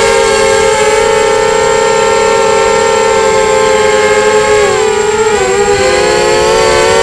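Quadcopter's motors and propellers whining steadily in flight, a cluster of several close tones, heard close up from the onboard camera. About five seconds in the tones sag and waver, then climb back to their earlier pitch.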